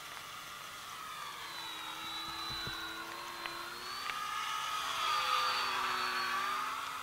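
Small brushless electric motor and propeller of a radio-controlled Extra 330 model plane whining in flight. It grows louder to a peak about five seconds in as the plane comes close, its pitch dropping as it passes.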